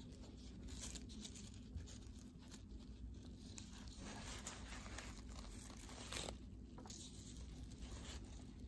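Faint, irregular rustling and crinkling of stiff tulle netting and a satin ribbon being handled and pressed together.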